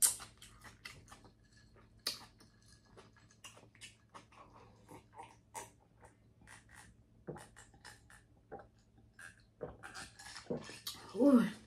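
Close-miked chewing of a large mouthful of seafood boil: irregular wet smacks and clicks of the lips and mouth. A brief pitched sound comes near the end.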